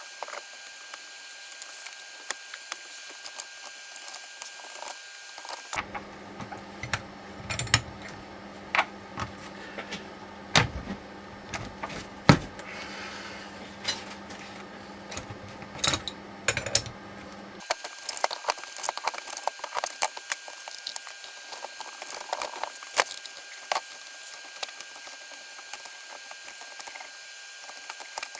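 Intermittent metallic clinks, taps and clatter of hand tools and steering-rack parts being handled. For a stretch in the middle a low steady hum runs underneath, then stops abruptly.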